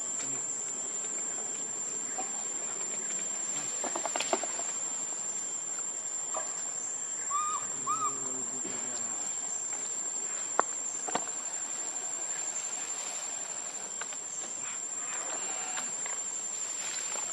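Insects droning in a steady high-pitched tone, with a few sharp clicks and two short chirps near the middle.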